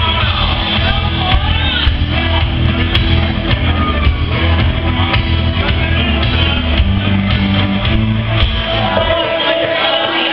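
A country-rock song performed live, with a heavy bass beat and a man's voice singing and shouting over it; the band stops about nine seconds in, leaving a held note ringing.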